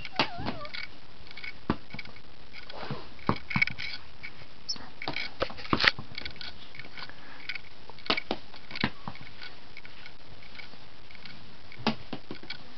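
Scattered sharp taps and knocks of a cat batting at a small ball on a tabletop, the loudest about six seconds in, over a steady camera hiss. A brief wavering squeak sounds at the very start.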